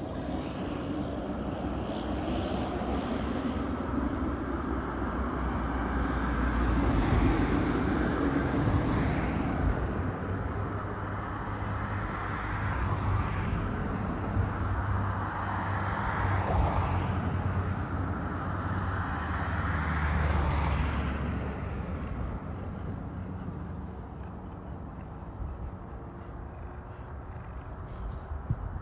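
Twin turboprop engines of a Britten-Norman BN2T Turbine Islander running as it taxis and lines up, swelling louder twice, then fading after about two-thirds of the way through as it rolls away down the runway.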